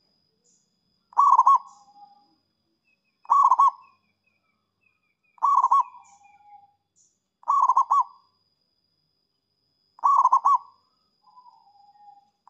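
Zebra dove (perkutut) cooing: five short phrases of quick, rolling coo notes, one about every two seconds.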